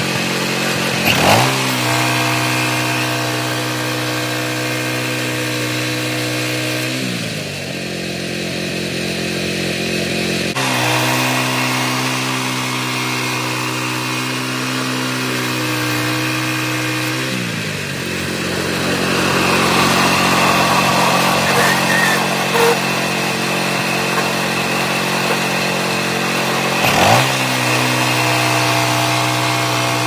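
Kohler gasoline engine on a portable manual band sawmill running steadily while its band blade cuts through a hemlock log. The engine pitch drops and recovers several times, and the cutting noise is strongest in the second half.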